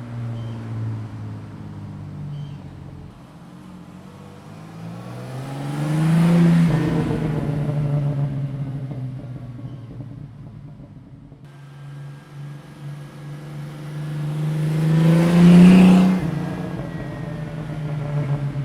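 1989 Jeep Cherokee XJ's 4.0L inline-six exhaust through a Flowmaster 40 Series Delta Flow muffler, passing by slowly twice: each time the engine note climbs and grows loud as it comes close, peaking about six seconds in and again near the end, then fades as it goes past.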